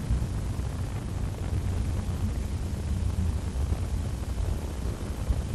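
Steady low rumble of a Proton-M carrier rocket's engines heard from far below as it climbs away.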